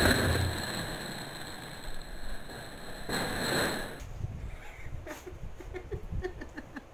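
Loud rustling noise for about four seconds as the seal on top of a cardboard chip-style can is peeled off, stopping abruptly. It is followed by a woman's short bursts of laughter.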